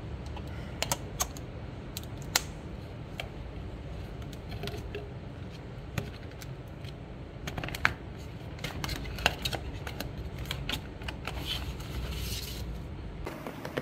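Empty cardboard perfume box being handled and its flaps folded shut: scattered light clicks and taps of card, with a brief papery scrape near the end.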